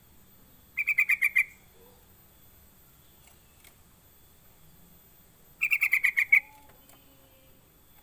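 Yellow-vented bulbul (trucuk) calling: two short bursts of about seven rapid, bubbling notes each, one about a second in and the other near six seconds.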